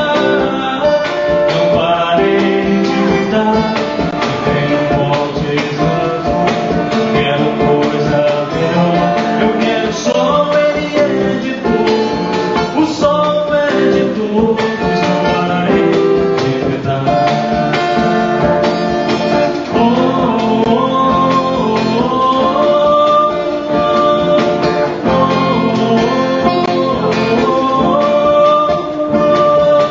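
Live performance of a song with guitar, in a passage without sung words; melodic lines glide up in pitch several times in the second half.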